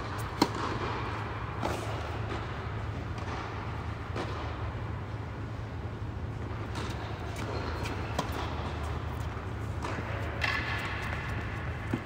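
Tennis balls struck by rackets and bouncing on an indoor hard court: sharp pops every second or two, the loudest about half a second in. Under them runs a steady low hum.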